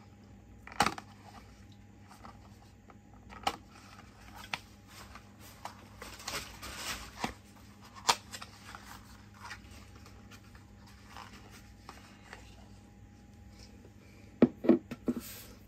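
Small cardboard skincare box being opened and the serum bottle taken out and handled: scattered clicks, taps and paperboard rustling, with a quick run of taps near the end.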